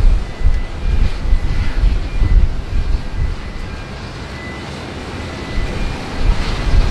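Jet airliner's engines running, with a faint high whine that swells near the end, under gusts of wind buffeting the microphone.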